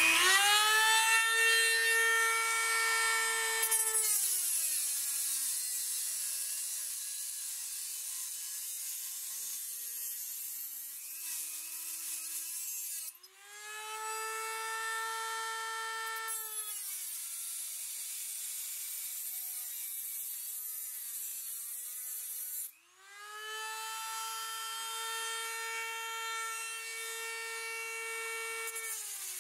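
Dremel rotary tool with an abrasive cut-off wheel grinding a notch out of aluminium Schluter edge trim. A high whine holds steady for stretches, then sags and wavers lower before climbing back, over a gritty grinding hiss. It breaks off sharply twice.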